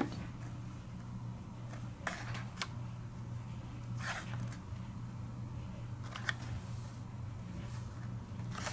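Faint, scattered taps and rustles of blister-packed Hot Wheels cars on their cardboard cards being handled, about half a dozen over several seconds, over a steady low hum.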